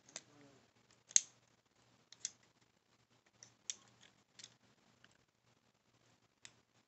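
A plastic Transformers action figure being handled and posed: a handful of sharp plastic clicks and taps as its parts are moved, the loudest about a second in, with faint handling rustle between.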